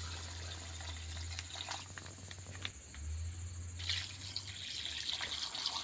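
Water poured from a steel pot into a hot wok of frying chicken and bamboo shoots, sizzling and bubbling as it hits the hot pan. The hiss grows louder about four seconds in, with a few light knocks.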